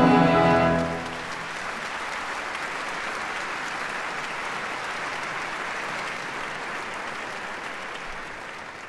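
The orchestra's final held chord ends about a second in, followed by steady theatre audience applause for the close of the act, which begins to fade near the end.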